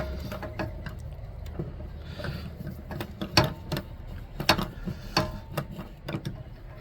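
Scattered light metallic clicks and clinks of hand tools and small parts being handled at an air conditioner's compressor mounts, over a steady low hum.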